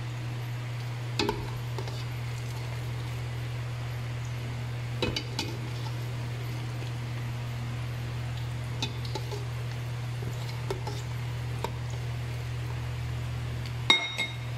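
A metal utensil clinking against a stainless steel pot of boiling broth, a few separate clinks with the loudest, ringing one near the end, over a steady low hum.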